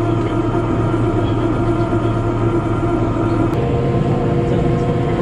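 Interior running noise of a JR Kyushu KiHa 72 series diesel railcar under way: a steady hum of the diesel engine and running gear over rail noise, its tone changing about three and a half seconds in.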